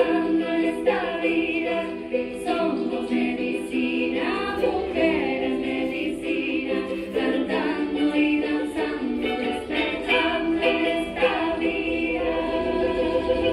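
Music: a group of voices singing a chant together over steady held notes.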